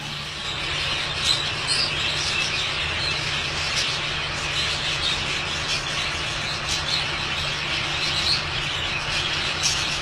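A flock of budgerigars chattering and chirping continuously, many birds at once, with a steady low hum underneath.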